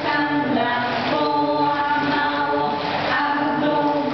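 A group of women's voices singing a song together in long held notes.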